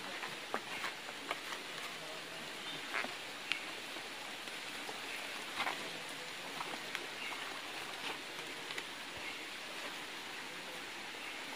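Steady rushing of a forest stream, with scattered short clicks and knocks over it.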